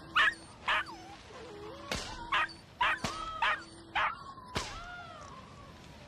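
A girl crying in high, wavering whimpers and sobs, broken by a string of short, sharp snips of scissors cutting her hair.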